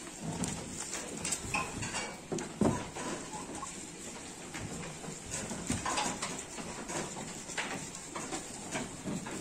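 Garut ram eating dried jackfruit leaves close up: irregular crunching and chewing as the dry leaves crackle and rustle.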